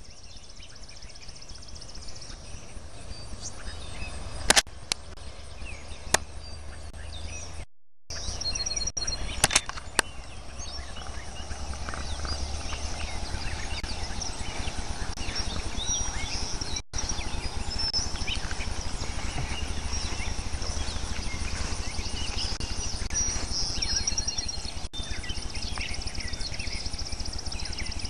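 Outdoor birdsong with a steady high trilling chirp running throughout, over a low rumble. A few sharp clicks come in the first ten seconds, and the sound drops out briefly about eight seconds in.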